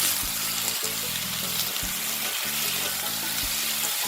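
Bok choy stems, garlic and ginger sizzling steadily in hot oil with the stir-fry sauce as they are stirred, over soft background music.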